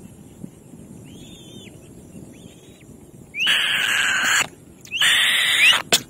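Kites giving two harsh screeching calls, each about a second long, the first about three seconds in, with faint high chirps before them.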